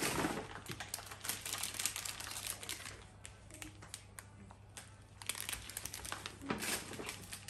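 Plastic food packaging and a paper delivery bag crinkling and rustling as groceries are lifted out and handled, with a quieter pause in the middle.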